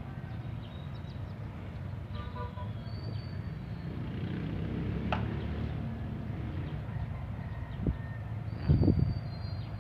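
Steady low rumble of vehicle engines and street traffic, with a few faint high tones and a sharp click midway. Two low thumps near the end are the loudest sounds.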